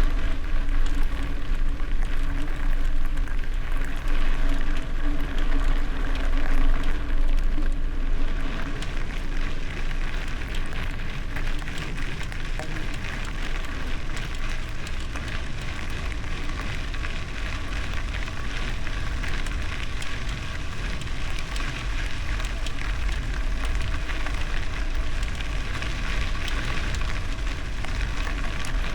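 Bicycle tyres rolling over gravel, a dense steady crackle, with wind rumbling on the microphone. It is a little louder in the first eight seconds or so.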